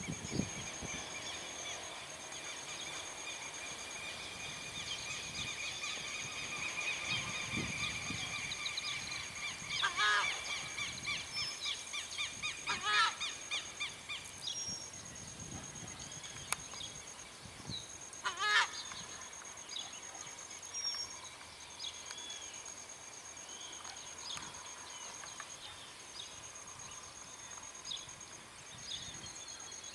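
Southern screamer (tarrã) calling: loud honking calls in three bouts, about ten, thirteen and eighteen seconds in. Behind them run a steady high buzz and scattered chirps of smaller birds.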